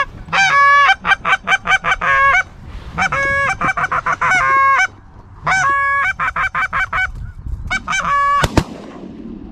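Canada goose honks and clucks in rapid bursts of short notes. A single shotgun shot sounds near the end.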